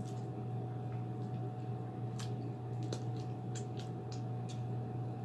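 Wet mouth sounds of someone eating: scattered short, sharp clicks and smacks, mostly in the second half, over a steady low hum.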